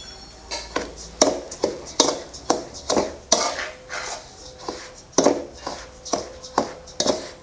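A perforated metal ladle scraping and stirring semolina in a metal kadai, in short strokes about two a second. The semolina is being roasted in ghee over a low flame, an early stage of making rava laddu.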